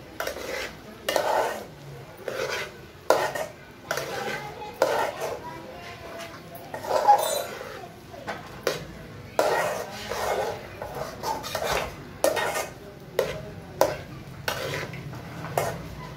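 A steel spatula stirring chopped okra and onions in an aluminium pot, scraping and knocking against the pot's metal sides in irregular strokes, roughly one or two a second.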